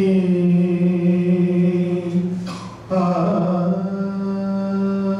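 A man's solo voice singing a Tamil Saiva devotional verse unaccompanied, in long held notes, with a short pause for breath about two and a half seconds in.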